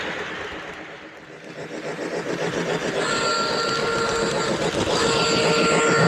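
Lionel O gauge Hudson model locomotive and its passenger cars rolling over the track with a rattling rumble that fades and then swells again. About halfway through the locomotive's sound system blows its steam whistle: two long blasts, one straight after the other.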